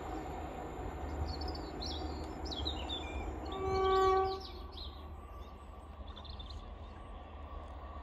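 Birds chirping over a low rumble. About halfway through comes a short, steady train horn note, the loudest sound.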